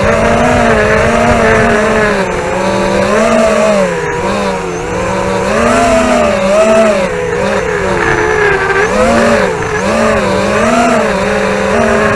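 Brushless motors and tri-blade props of a ZMR250 racing quadcopter whining, the pitch rising and falling every second or so as the throttle changes, over a low rumble, as picked up by the camera on board.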